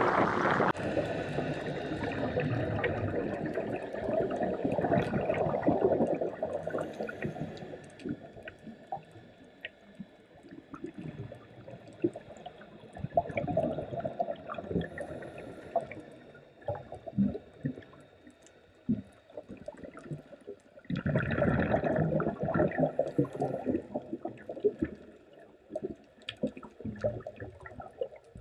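Scuba diver's exhaled bubbles gurgling out of the regulator underwater, in loud bursts roughly every eight to nine seconds with quieter stretches between breaths. Scattered faint clicks run through the quiet stretches.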